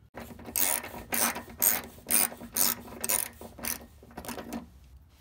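Socket ratchet with a 21 mm socket clicking in repeated strokes, about two a second, as it unscrews a bolt.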